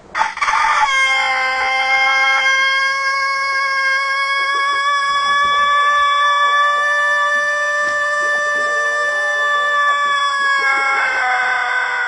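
A rooster crows one very long crow. After a couple of short opening notes it holds a single steady pitch for about ten seconds, then breaks into a rougher ending that falls in pitch near the end.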